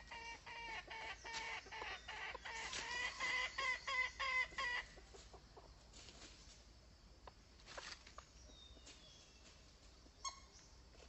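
Red junglefowl hen clucking, the call used to lure wild junglefowl: a quick run of clucks, about three to four a second, that stops about five seconds in, then a few faint scattered calls.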